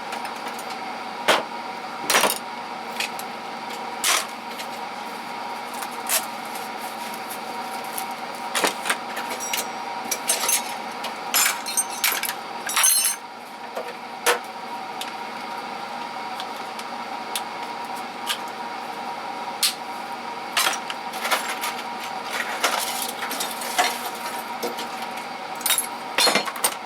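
Metal hand tools clinking and clattering as they are handled and set down, in irregular sharp knocks and clinks over a steady background hum.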